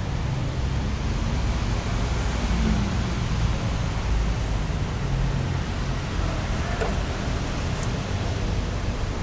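Steady rushing wind noise on the microphone, strongest at the low end, with no distinct event standing out.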